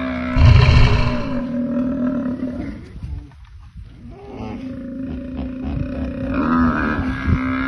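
Long, drawn-out animal calling, a steady low-pitched voice held for seconds at a time. A rough, louder burst comes about half a second in, and the call breaks off briefly around the middle before starting again.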